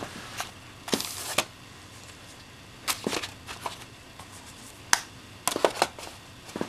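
Items being packed back into a cigar-style presentation box: a short paper rustle about a second in, then scattered light clicks and knocks as the envelope, the steelbook case and the box parts are handled and set in place.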